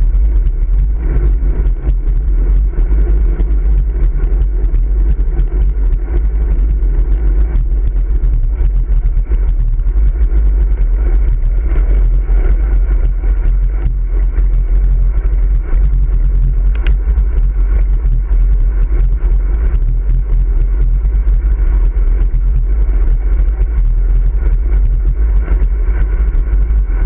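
Steady deep wind rumble and road noise from a road bike riding at speed, picked up by a camera mounted on the handlebars.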